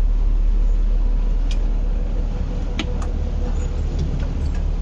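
Steady low drone of a harbour ferry's engine heard on board, with a faint constant hum. A few short sharp knocks come through it, about a second and a half in and again around three seconds.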